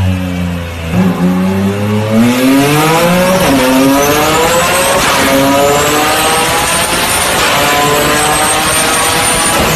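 Performance car engine and exhaust running loud, steady at first, then accelerating hard, its pitch climbing with dips at the gear changes. A thin high whine rises above the engine from about four seconds in.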